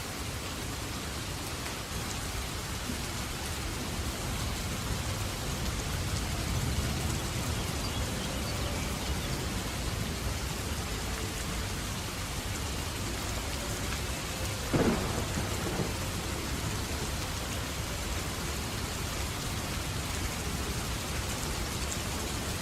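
Steady rain with thunder: a low rumble swells a few seconds in, and a sudden loud thunderclap breaks about two-thirds of the way through before the rain carries on.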